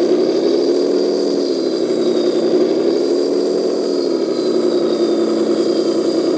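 Radio-controlled 10x10 hydraulic crane dump truck running its hydraulic pump steadily as the loader crane slowly lifts a load of about 3.2 kg near its limit, together with the model's simulated engine sound. A steady thin high whine runs over it, and the hum wavers slightly in pitch a second or so in as the load comes on.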